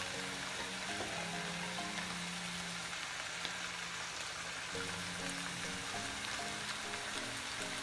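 Ground meat and canned tomatoes sizzling steadily in a frying pan, with soft background music.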